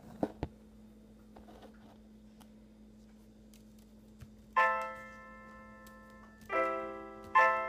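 Virtual piano (virtualpiano.net) played from a MacBook Pro's keyboard and heard through the laptop's speakers: a couple of sharp knocks at the start, then a chord struck about halfway through and two more near the end, each ringing and fading away.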